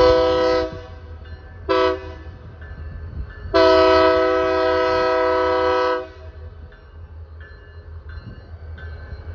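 Diesel locomotive air horn sounding several tones together. The end of one blast fades just under a second in, a short blast comes about 2 s in, and a long blast runs from about 3.5 to 6 s: the close of the long-long-short-long grade-crossing signal.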